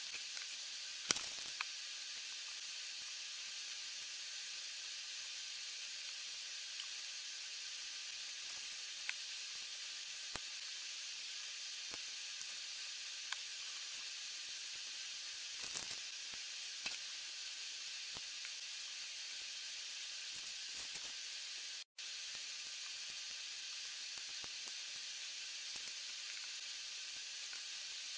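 Steady high hiss of recording noise, with a few short clicks and taps of plastic Lego pieces being handled. The two loudest clicks come about a second in and near the middle. The sound cuts out for an instant about two-thirds through.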